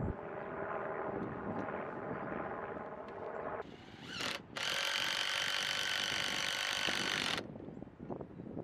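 Cordless drill-driver whirring as it drives screws to fasten the mill's guide-rail bracket to the log end: one run of about three and a half seconds, then after a short pause a louder, higher-pitched run that stops suddenly about seven and a half seconds in.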